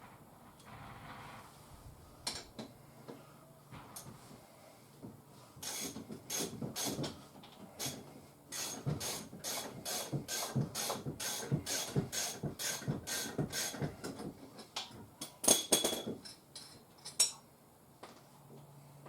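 Ratchet wrench clicking in a steady run of strokes, about three clicks a second, with a few louder clicks near the end.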